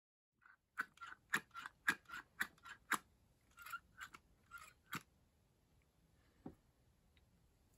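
Linkage of a rebuilt Solex 28 PICT-1 carburetor worked by hand: a rapid run of sharp metal clicks, about three a second, turning softer after about three seconds, then one more click near the end.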